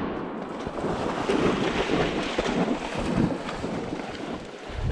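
Continuous uneven splashing and sloshing of shallow pond water, most likely a retriever wading out after a duck that has just been shot. The echo of the shotgun blast dies away at the very start.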